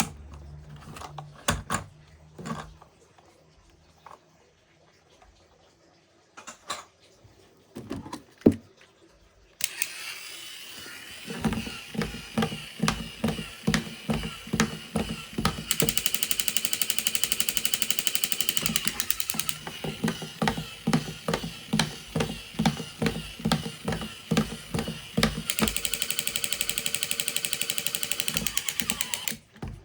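Toys and packaging being handled with scattered clicks and knocks, then a battery-powered toy vehicle running: a steady mechanical noise pulsing about twice a second, with a rapid rattling buzz in two stretches.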